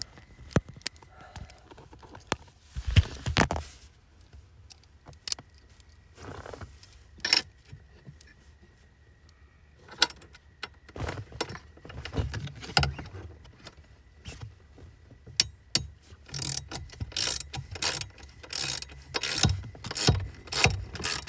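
Hand tools and loose metal parts clicking, clattering and knocking while a car's blower motor is worked loose from behind the dashboard, with a quicker run of clicks over the last few seconds. A faint steady high whine sits under the first half.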